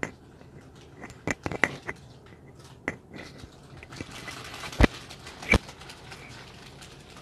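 Crunching and chewing of crisp Kurkure-type corn snacks, with rustles of the plastic snack packets: scattered short crunches, the two loudest about five seconds in.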